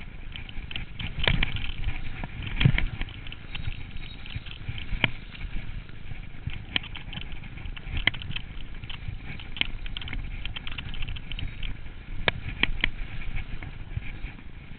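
Mountain bike riding over a rough, frozen, snow-covered trail: a continuous rumble of tyres on the ground with frequent irregular rattles and knocks from the bike over the bumps.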